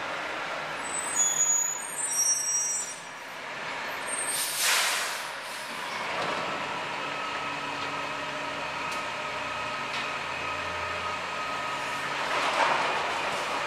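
Refuse truck running at low speed, with thin high-pitched squeals in the first few seconds, a sharp hiss of air-brake air about four and a half seconds in, and a weaker rush of noise near the end.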